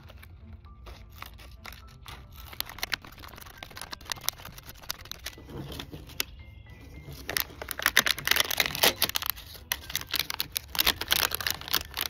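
Dry coconut coir fibre being torn, rustled and packed by hand into a wire cage, heard as scratchy crackling bursts that get louder and busier about two-thirds of the way through.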